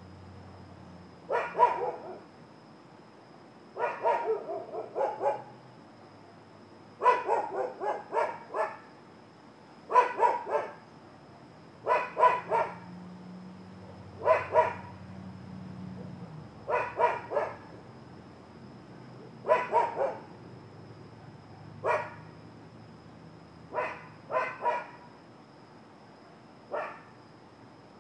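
Dog barking over and over outdoors, in short runs of two to five barks about every two seconds.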